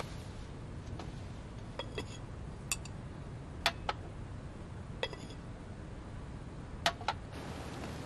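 Porcelain bowls and a spoon clinking at a dinner table: about eight light, ringing clinks, spaced irregularly and sometimes in quick pairs, over a low steady hum.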